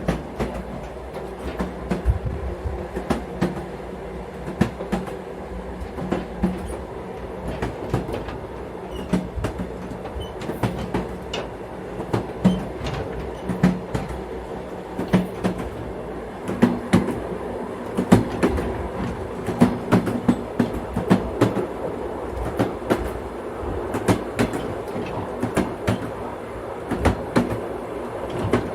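Train in motion: a steady rumble of the running gear with frequent sharp, irregular clacks as the wheels pass over rail joints.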